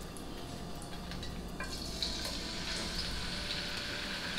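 Hot oil sizzling in a frying pan as a beef short rib is laid in to sear; the sizzle is steady and grows a little louder about two seconds in.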